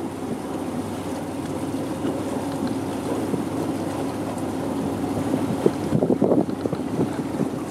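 Boat motor running steadily with wind rumbling on the microphone; the noise gets louder and rougher about six seconds in.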